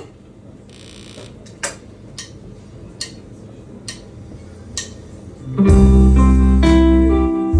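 A live indie band starting a song. A few sharp ticks about a second apart come over a low background, then about five and a half seconds in the full band comes in loud, with heavy bass and sustained guitar chords.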